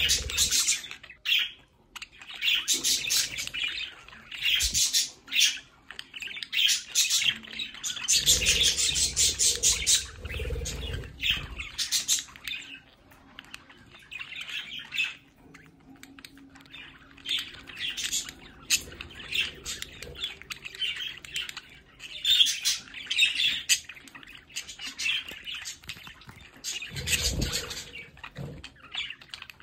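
Several pet budgerigars chirping and chattering in quick bursts, with a few dull low bumps among the calls.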